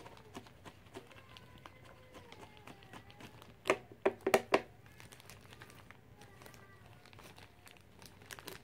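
Plastic packaging wrap being handled and pulled off a drone remote controller: soft crinkling throughout, with a short cluster of loud, sharp crackles about four seconds in.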